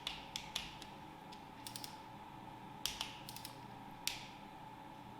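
Scattered light clicks and clinks of hand tools and parts being handled on a VR6 engine's timing chain tensioner, about a dozen sharp separate ticks, some in quick little clusters, over a faint steady tone.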